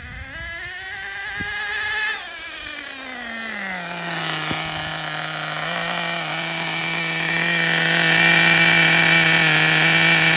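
Traxxas Nitro Rustler's Pro.15 nitro engine, freshly broken in, revs with a rising pitch for about two seconds, then drops back and settles into a steady idle. The idle grows louder near the end as it is heard up close.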